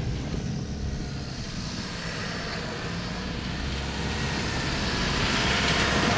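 Toyota Hilux pickup driving slowly down a rocky dirt track, its engine running low and steady with tyres over loose stones, growing louder as it approaches.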